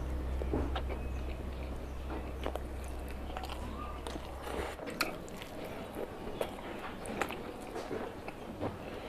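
Close-miked eating sounds: a bite into a curried boiled egg, then wet chewing with scattered smacks and clicks of the mouth and the curry-covered fingers. A low steady hum runs underneath and stops about halfway through.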